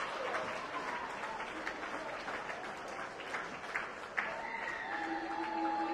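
Stadium crowd applauding a try, a patter of many hands clapping. About four seconds in, a held steady tone joins the applause.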